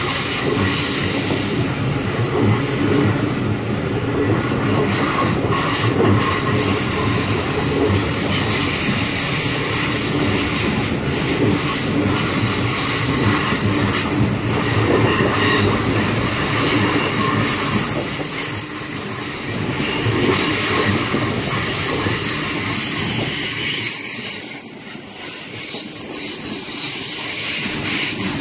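Indian Pacific passenger cars rolling past on a curve: a steady rumble of wheels on rail, with high-pitched wheel squeal coming and going. Near the end the low rumble thins out.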